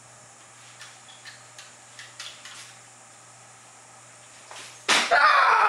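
Quiet room tone with a low steady hum and a few faint clicks and shuffles, then about five seconds in a sudden loud vocal cry that falls in pitch.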